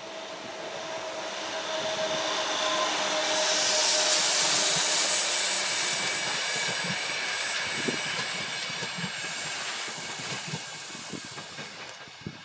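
ÖBB class 4020 electric multiple unit passing at speed: a rushing wheel-and-rail noise builds to its loudest about four seconds in. A run of short wheel knocks over rail joints follows as the cars go by, and then the sound fades away.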